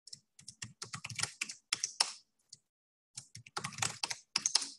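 Typing on a computer keyboard in two quick runs of keystrokes, with a pause of about a second between them: a password being typed and then retyped at a terminal prompt.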